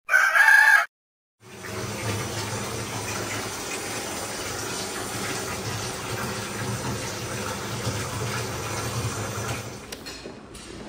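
A brief loud tone in the first second, then after a short silence a bathtub filling with water: a steady rush of water running into the tub, which stops about ten seconds in.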